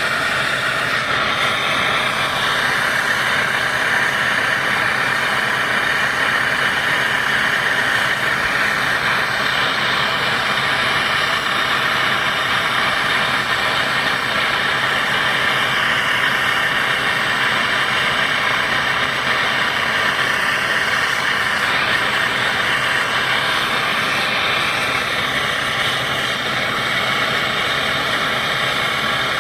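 Brazing torch flame hissing steadily while heating copper pipe.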